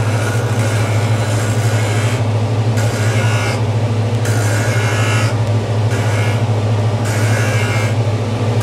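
Skate sharpening machine grinding a stainless steel hockey runner: a steady motor hum under a grinding rasp that drops out and returns every second or so as the steel is worked along the wheel to blend and taper the toe.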